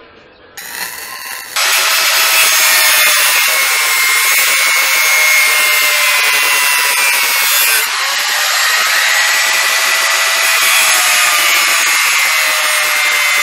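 Electric angle grinder grinding into a steel BMX frame: a loud, steady high whine over a harsh grinding hiss. It starts softer just after the start, comes up to full loudness about a second later, and its pitch sags slightly about halfway through as the disc bites harder.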